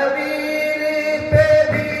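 Men singing a naat (Urdu devotional poem) through a PA system, holding long steady notes.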